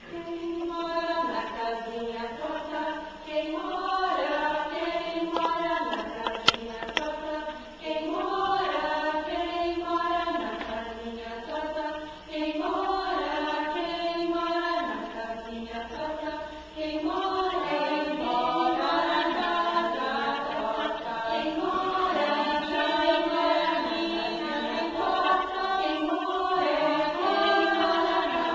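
Small choir of young and adult voices singing a song together, in phrases a few seconds long with short breaks between them. A brief sharp click sounds about six seconds in.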